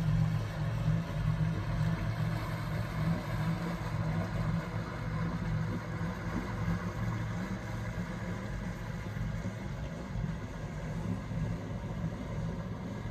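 Motor cruiser's inboard engines running at low speed as it motors past and away, a steady low drone that grows slightly fainter.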